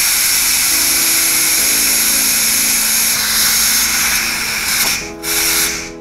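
Steam hissing loudly and steadily out of a Fun Kitchen electric pressure cooker's pressure-release valve as the pressure is let off at the end of cooking. The hiss briefly drops out twice near the end.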